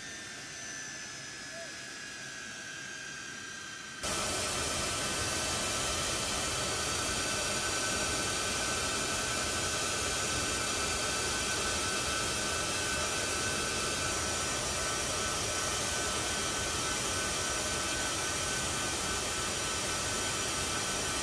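Turbofan jet engines of a C-17 Globemaster III transport running on the ground: a steady hiss with several high, steady whining tones. It starts quieter with a whine slowly falling in pitch, then jumps suddenly louder about four seconds in and stays even.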